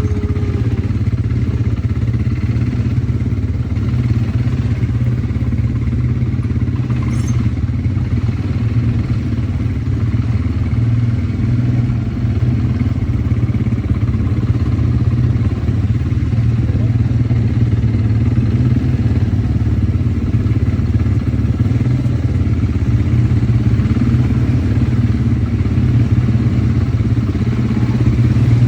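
Quad bike (ATV) engine running steadily while riding, with a loud, even low drone throughout.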